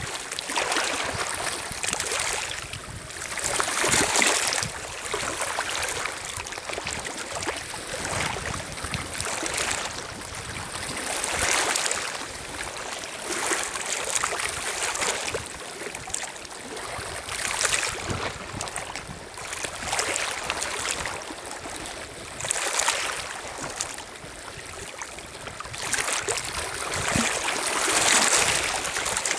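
Small lake waves lapping and washing onto a stony shore, with a surge of water every few seconds.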